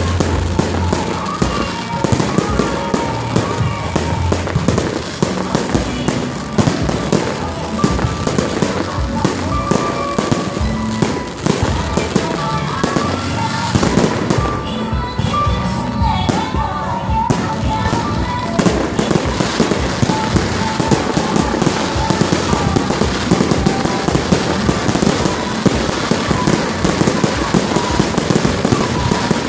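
Fireworks display: aerial shells bursting one after another in rapid succession, the bursts coming thicker in the second half.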